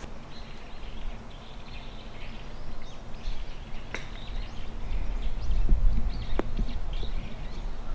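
A golf club strikes the ball off the grass in a short shot, a single sharp click about four seconds in. Birds chirp throughout.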